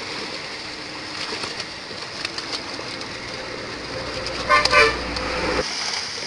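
Fish splashing and thrashing in a seine net being drawn in through shallow pond water. About four and a half seconds in comes a short, loud two-pulse toot, the loudest sound here.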